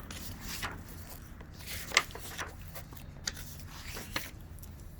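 Quiet rustling of paper being handled, as of a picture book being opened and its pages turned, with a few light clicks and one sharper tap about two seconds in.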